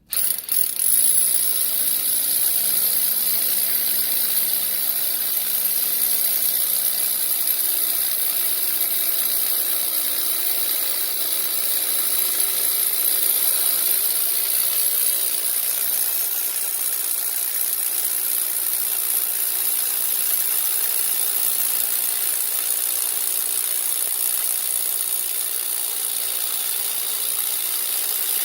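Electric drill running steadily as it bores a hole into a floor, with a constant high whine. It starts abruptly right at the beginning.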